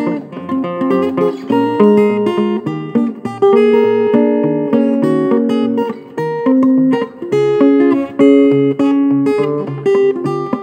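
Solo acoustic guitar played fingerstyle, a steady, evenly spaced bass line picked under a melody of higher notes.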